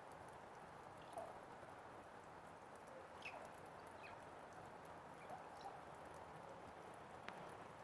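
Common raven making a few faint, scattered clicks and short high notes a second or two apart, one a sharp click near the end, over a steady hiss of distant traffic.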